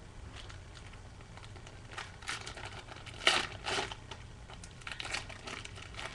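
Crinkling of a football card pack's wrapper being handled and opened, in several short rustles, the loudest a little past three seconds in.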